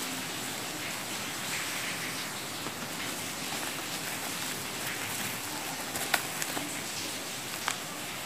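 Steady hiss of rain falling, with a few sharp crackles of bubble wrap being handled around the box.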